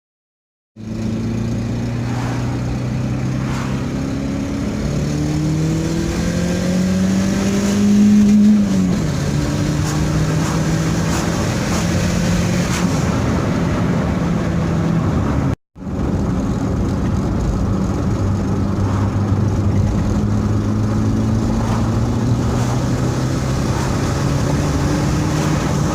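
Turbocharged car engine accelerating, its blow-off valve modified (spring and valve cut) to vent louder. The pitch climbs for a few seconds and drops sharply when the throttle is lifted, where the valve vents, then after a brief break rises slowly again under load.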